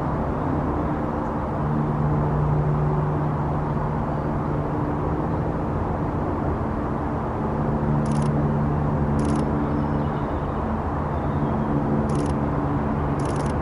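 Steady low engine hum, with four short high ticks in the second half.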